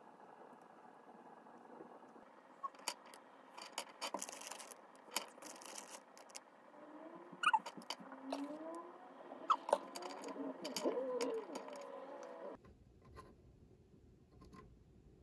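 Small plastic parts of a miniature toy shopping basket being handled and clicked together, with crinkling of clear plastic wrappers. Scattered sharp clicks throughout, the two loudest a little past the middle, with a few faint squeaks in the latter half.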